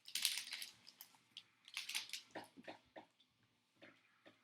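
Foil trading-card pack wrappers and cards being handled, crinkling and rustling in short irregular bursts, loudest near the start and again about two seconds in, then a few faint clicks.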